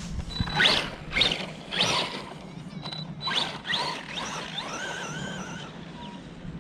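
ARRMA Big Rock 3S RC monster truck's brushless motor whining in about five short rising bursts as the throttle is blipped, then held at a steady, slightly wavering pitch for a couple of seconds as the truck drives off.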